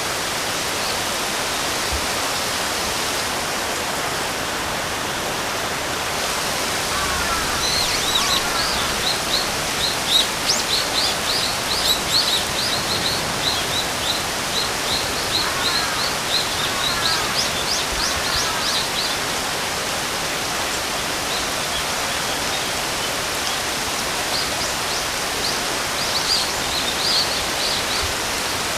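Steady rain with a bird calling over it: quick runs of short, high chirps through the middle and again near the end.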